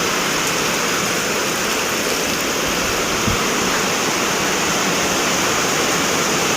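Heavy rain pouring down steadily, with one brief knock about three seconds in.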